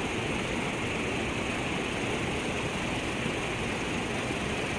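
Steady rushing of river water running over a riffle.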